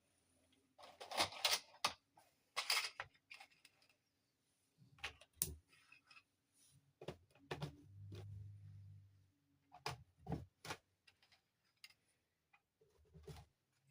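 Hands unpacking a toy dollhouse castle: an irregular string of short rustles, clicks and knocks from packaging and plastic parts, with a low steady rumble lasting about a second about eight seconds in.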